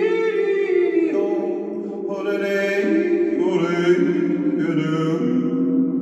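A man yodeling wordless phrases that jump between notes, in a concrete tunnel whose long echo makes each note ring on and overlap the next.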